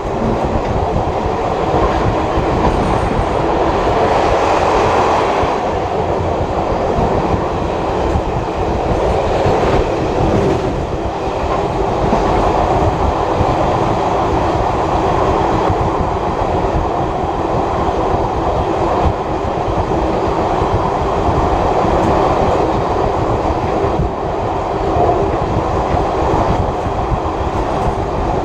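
Heritage passenger carriage running behind a steam locomotive, heard from on board: steady running noise of wheels on the rails.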